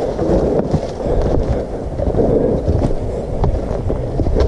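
Footsteps crunching and shuffling through dry fallen leaves on a trail, with a steady low rumble of wind and handling noise on the handheld camera's microphone.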